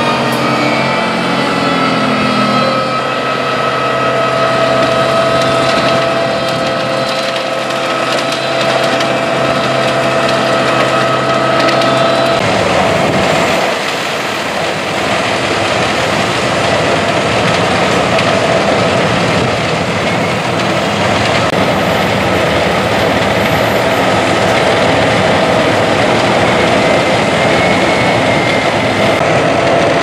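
Albach Diamant 2000 self-propelled wood chipper running at full working speed with a steady mechanical whine. About 12 seconds in the sound turns rougher and noisier as its crane feeds branches through the chipper.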